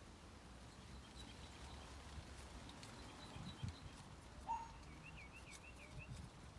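Faint songbirds calling: scattered high chirps, then a run of four or five quick slurred notes near the end, over low background rumble with a couple of soft thumps.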